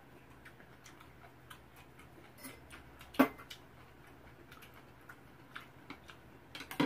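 Chopsticks tapping and clicking against bowls while eating: scattered light clicks, with one sharper clack about three seconds in and a quick cluster near the end.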